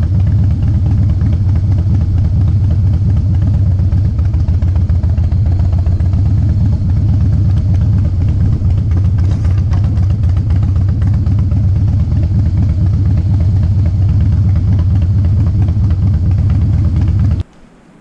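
Motorcycle engine running at low speed, a steady rapid low pulse. It cuts off suddenly near the end, leaving only a faint background.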